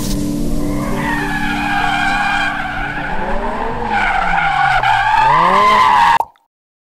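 Mazda MX-5 Miata race car doing donuts: its engine revs up and down while the rear tyres squeal and skid. The sound cuts off suddenly about six seconds in.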